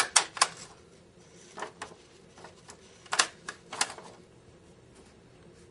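Handheld stapler snapping shut on sheets of paper: sharp clacks in three quick clusters of two or three.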